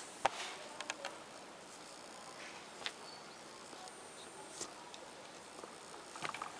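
Cat pawing and nosing under interlocking foam floor mats after a feather toy: scattered light taps and scuffs of paws and claws against the foam and the wooden floor, with a cluster of louder ones near the end.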